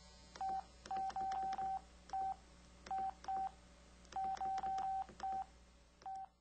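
IM-U130 mobile phone's key tones: about a dozen short beeps, all at one pitch and each led by a faint click, as the menu keys are pressed, some coming in quick runs of three or four.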